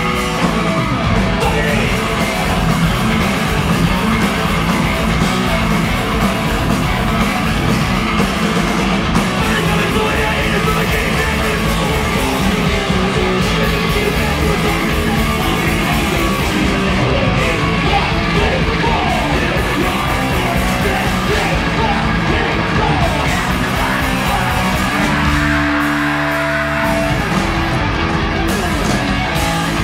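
A live heavy rock band playing loud, with yelled, sung vocals over the band. About 25 seconds in, the low end drops out for a couple of seconds under a held note, then the full band returns.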